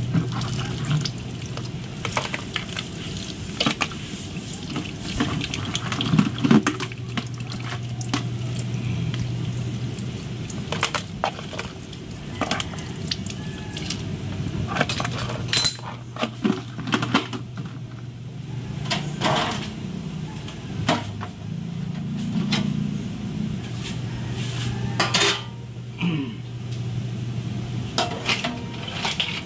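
Cooked crabs being handled in a metal tray: shells clattering and knocking against the metal in scattered sharp knocks, over a steady low hum.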